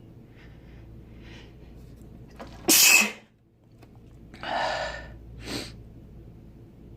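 A man sneezes once, loudly and sharply, about three seconds in, after a few short in-breaths. Two shorter breathy sounds follow, the first about a second and a half after the sneeze.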